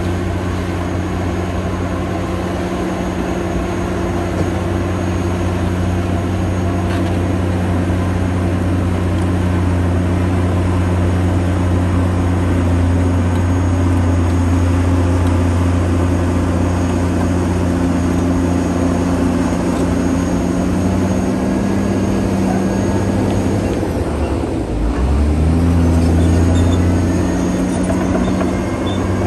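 Caterpillar D9T crawler dozer's diesel engine running steadily under load. A little over 24 seconds in, the engine note dips briefly, then rises and holds at a higher pitch.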